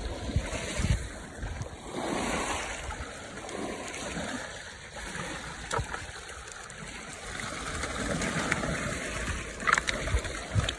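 Small waves lapping at a pebble shore, with water splashing as a keep net holding carp is worked and lifted out of the shallows; a few sharper splashes come near the end.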